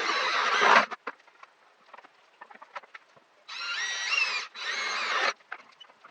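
Handling noise from DIY work: a rustling scrape in the first second, scattered small clicks, then two squeaky rubbing strokes with wavering pitch near the end.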